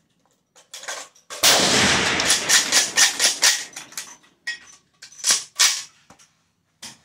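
Rifle fire on a firing line: a loud report about a second and a half in, then a quick run of shots, a pair more past the midpoint, and a last single crack near the end.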